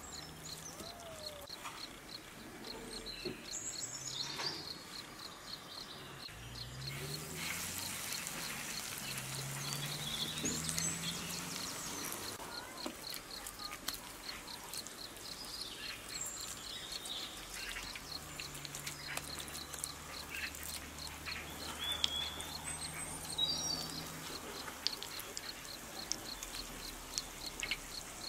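Outdoor rural ambience: small birds chirp now and then over a faint, fast, regular ticking. A low steady hum comes in for two stretches of several seconds.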